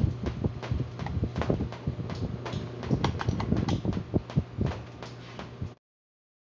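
Steady electric hum of an orbit fan's newly fitted motor, with irregular clicks and knocks from handling the fan and its dial speed regulator. The sound cuts off abruptly near the end.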